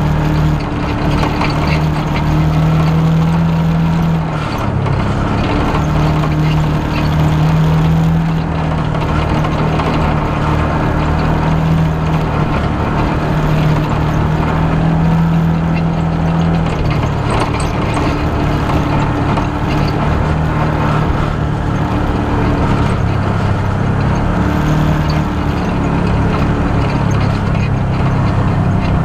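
Side-by-side UTV engine running steadily under load, heard from on board. Its pitch drops about halfway through, and the jolting of the machine over the rough dirt track runs underneath.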